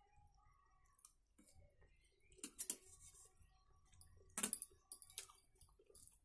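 Faint sounds of eating rice by hand from a steel plate: chewing, and fingers mixing rice against the plate, with a few short clicks and taps, the loudest about two and a half and four and a half seconds in.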